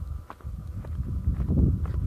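Footsteps on bare sandstone, a few irregular scuffs and clicks a second, over a low rumble on the microphone that grows louder about halfway through.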